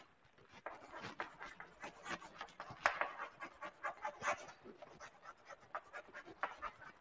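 Chalk writing on a blackboard: a quick, irregular run of short, faint scratches and taps as a word is written.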